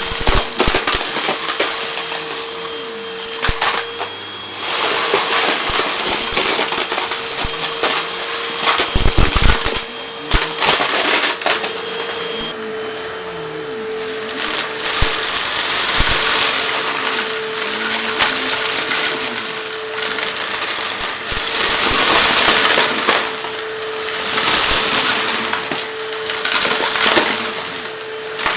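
Vacuum cleaner running with a steady motor hum while sucking up crunchy debris, which crackles and rattles through the machine in repeated surges.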